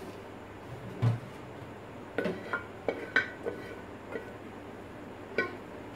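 Kitchen dishes and utensils clattering: a dull thump about a second in, then a run of short clinks and knocks, several close together between two and three and a half seconds in, and another near the end.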